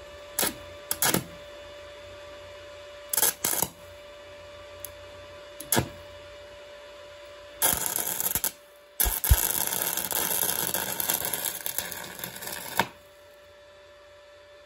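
Stick welding with an inverter arc welder at about 120 amps, using aluzinc-coated nails as improvised electrodes. There are several short crackles as the arc is struck and breaks off, then a sustained sizzling crackle of the arc running a bead for about five seconds, broken briefly once, stopping a couple of seconds before the end.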